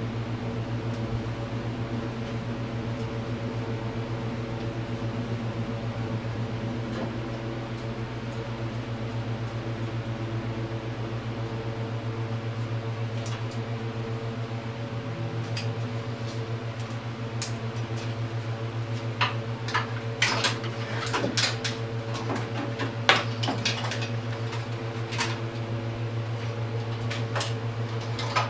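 Steady hum of a fan throughout. Over it come light metallic clinks and knocks of tools and metal parts, sparse at first and more frequent in the last third, as the carburetor is worked off an ATV engine.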